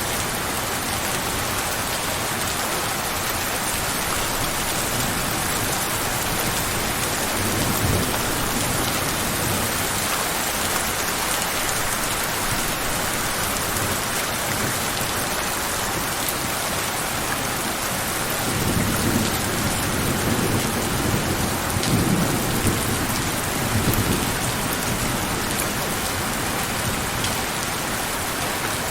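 Steady, even rain falling on surfaces, with a low roll of thunder about eight seconds in and a longer, rumbling stretch of thunder from about two-thirds of the way through.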